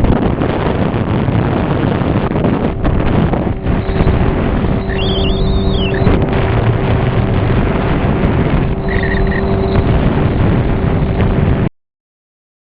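Motorboat running under way, a steady engine drone under heavy wind noise on the microphone; it cuts off suddenly near the end.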